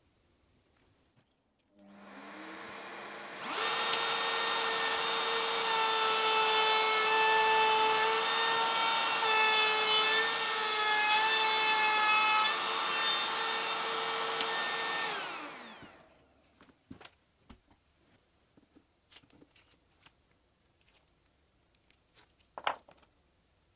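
Makita cordless trim router starting up and running steadily with a whine, routing a circle through plywood, until it is switched off and winds down about fifteen seconds in. After that come a few light clicks and taps, with one sharper knock near the end.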